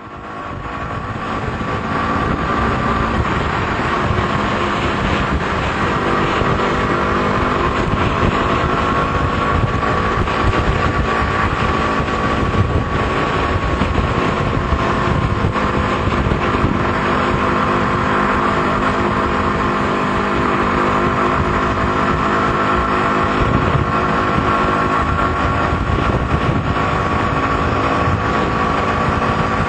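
KTM RC 125's single-cylinder four-stroke engine running under way at a fairly steady speed, its pitch drifting only slightly, with wind rushing over the microphone.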